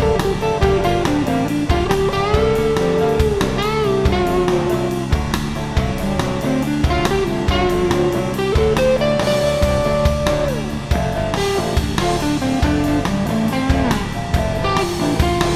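Background rock music: a guitar lead with bending, sliding notes over a steady drum beat.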